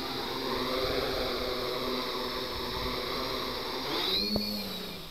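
Quadcopter's electric motors and propellers buzzing as it hovers low, the pitch wavering with small throttle changes. About four seconds in the motors briefly rev up and then wind down, with a single click, and the buzz drops away at the end.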